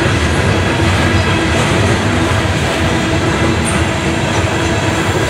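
Loaded coal train's open-top steel hopper cars rolling past: a steady rumble of steel wheels on rail.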